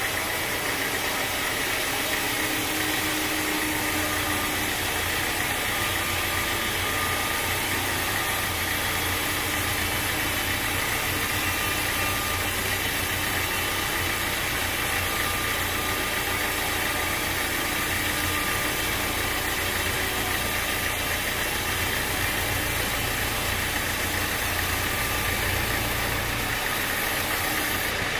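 Sawmill machinery running steadily, an even engine-like drone; its low hum drops away near the end.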